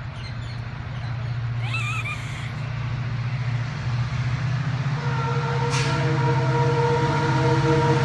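WDP4B (EMD GT46PAC) diesel locomotive approaching, its 16-cylinder two-stroke engine a steady low drone that grows louder as it nears. About five seconds in its air horn sounds one long, held multi-tone blast.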